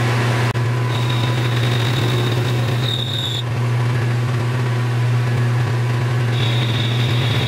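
Metal lathe running, its tool cutting a shallow pocket into aluminum soft jaws, with a steady low motor hum. A thin high-pitched whine from the cut comes in twice, and the sound briefly drops out about half a second in.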